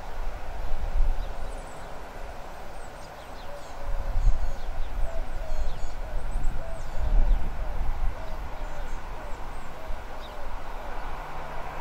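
Birds calling: a run of short, evenly repeated low notes over several seconds, with scattered high chirps, over an uneven low rumble.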